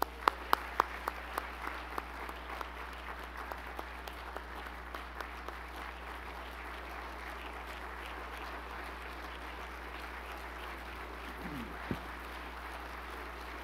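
Audience applauding steadily, with a few loud separate claps standing out in the first two seconds.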